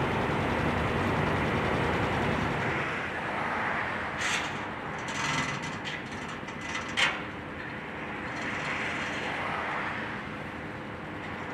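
Heavy construction machinery running with a steady drone that eases after about three seconds. A series of metallic clanks and knocks comes from about four seconds in, the sharpest at about seven seconds.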